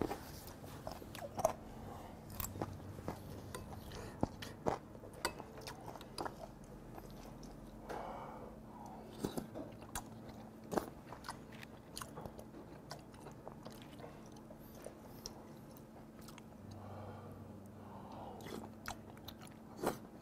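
A person eating spoonfuls of broth and rice: quiet chewing and mouth sounds, with scattered sharp clicks of a metal spoon against the stone pot and dishes.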